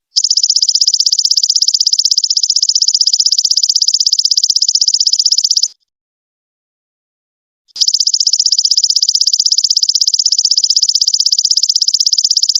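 Golden locust (belalang emas) calling: two long, high, fast-pulsing buzzy trills of about five seconds each, with a pause of about two seconds between them.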